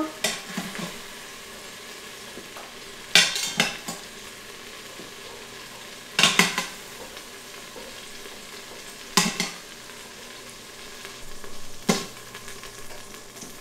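Beef cubes sizzling in hot oil in an Instant Pot's stainless steel inner pot on sauté, a steady hiss. Metal tongs clink sharply four times, about every three seconds, as browned pieces are lifted out.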